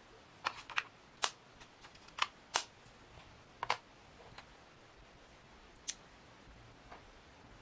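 Irregular small clicks and taps of hard plastic as a DJI Osmo Action 3 action camera and its battery case are handled, set down and lifted out of the box tray, about nine in all.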